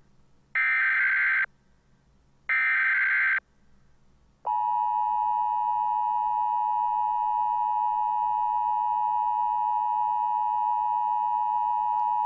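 Emergency broadcast alert tones: two bursts of buzzing data tones, about a second each and a second apart, then, about four and a half seconds in, the steady two-tone attention signal of the Emergency Alert System.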